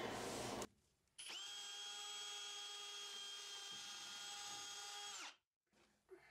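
Cordless drill motor spinning up, running at one steady speed for about four seconds, then winding down.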